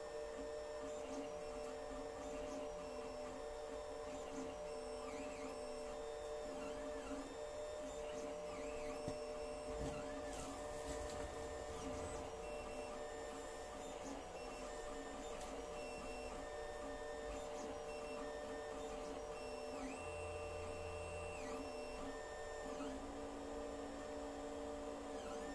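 Alfawise U10 3D printer printing PLA. Its stepper motors whine in short tones that keep changing pitch as the print head and bed move, over a steady hum.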